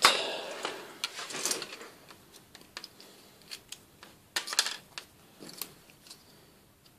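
Handling noise from a small magnetic-base antenna and its coax cable being picked up and worked on at a bench: a louder rustle-and-clatter at the start that fades, then a few scattered sharp clicks and taps.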